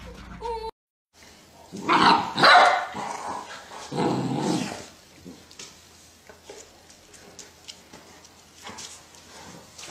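Golden retrievers growling and barking in rough play with puppies, in two loud outbursts about two seconds apart, the second one lower and more growl-like.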